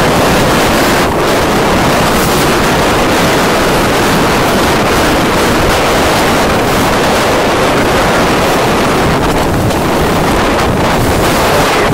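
Heavy wind buffeting the microphone over the rush of choppy sea water, a loud, steady roar with no distinct strokes.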